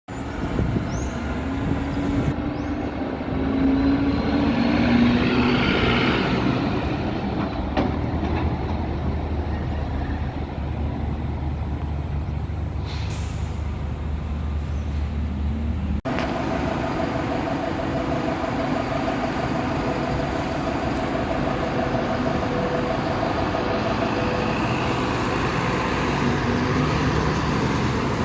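Heavy engines running at a ferry landing, with a constant low drone. The sound swells as something passes about four to six seconds in, then drops and shifts abruptly about sixteen seconds in.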